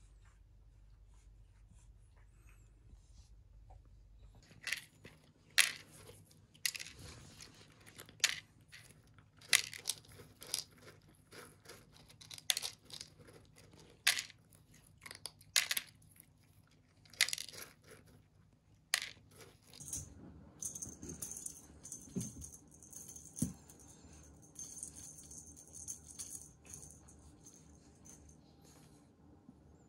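A kitten eating dry cat kibble straight out of a plastic food container: irregular sharp rattles and crunches as pellets knock against the plastic and are bitten, one every second or so. About two-thirds of the way in this gives way to a faint steady hiss with a couple of soft thumps.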